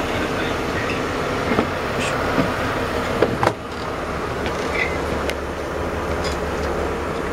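Steady rumbling background noise with a faint hum, broken by a few short knocks and taps in the first half, the loudest about three and a half seconds in.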